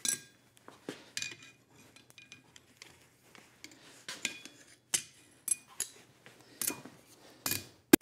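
Light, irregular metal-on-metal clinks with a short ring: a hot steel bar being flipped and blacksmith's tongs being set against it on the steel anvil, a few clinks at the start and then a quicker run of them in the second half.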